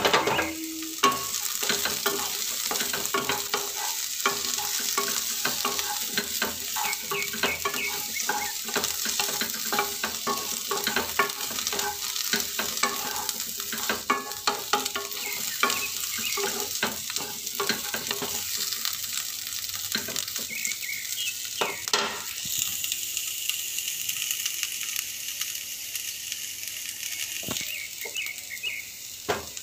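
Diced onion and green capsicum sizzling in a non-stick kadhai while a spatula stirs them, scraping and tapping against the pan. The stirring thins out about two-thirds of the way through, leaving mostly the steady sizzle with an occasional knock.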